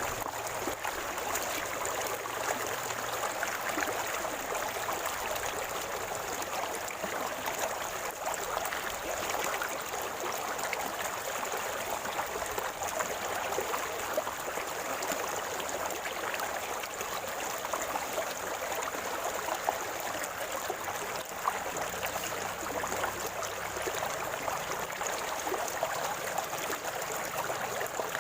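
River water flowing over stones, a steady gurgling with small splashes throughout.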